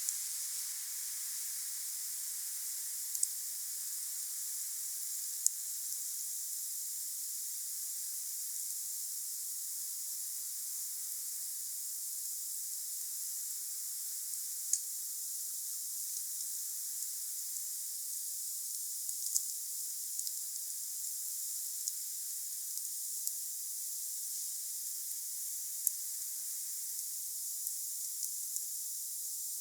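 Wood fire burning with a steady hiss, broken by a few sharp crackles and pops from the burning wood, about one every few seconds.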